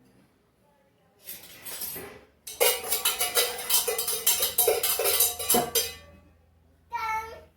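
Metal spoons clacked together rapidly as a rhythm instrument, a dense run of ringing clicks lasting about three seconds, followed near the end by a brief high-pitched call.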